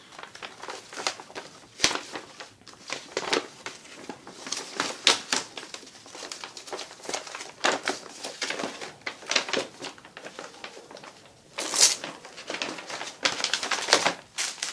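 Large glossy printed paper sheet being folded up by hand: irregular rustling and crinkling of the paper as it is creased and handled, with one louder rustle near the end.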